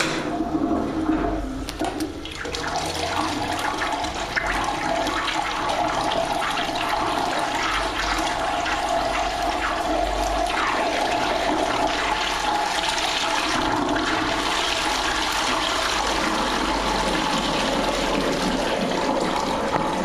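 Dolomite toilet bowl flushed from a concealed cistern by a wall push button: water rushes into the bowl and swirls, building up over the first two or three seconds and then running steadily for a long flush.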